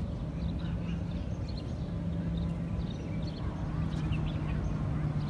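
Outdoor ambience: a steady low hum with faint, scattered high chirps.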